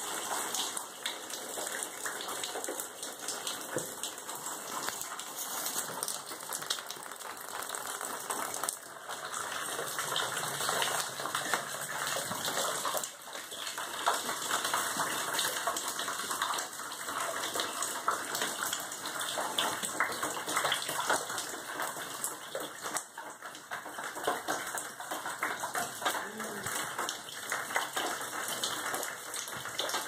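Water leaking through a sodden ceiling, falling in thin streams and drips that splash onto the floor in a steady, dense patter.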